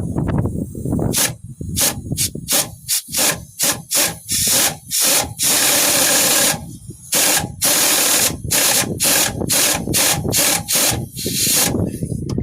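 Ratchet wrench with a 9/16 socket on a wobble extension worked back and forth on a motor mount bolt, clicking in short repeated strokes with one longer stretch near the middle. A steady low rumble of wind on the microphone runs underneath.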